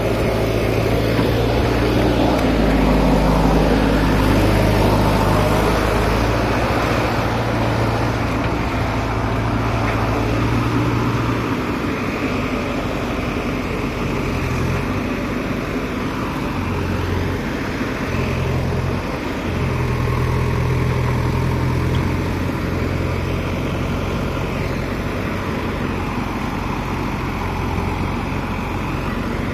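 JCB backhoe loader's diesel engine running, rising in level a couple of seconds in, then changing pitch several times as the machine works its front bucket and drives.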